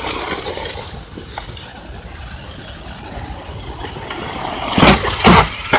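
Remote-controlled toy car running, a steady noisy hiss, with two loud short rushes near the end.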